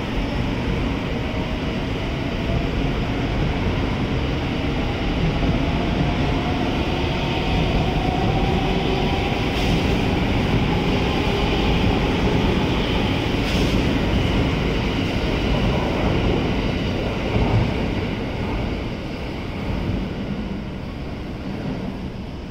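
683 series electric express train pulling out and accelerating past: running noise of wheels on rails, with the traction motor whine rising in pitch over the first several seconds, then the noise easing off near the end as the last cars go by.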